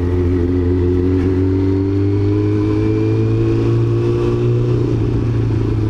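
Yamaha YZF-R6's inline-four engine pulling in gear, its pitch rising slowly for about five seconds, then easing off near the end, heard from the rider's helmet.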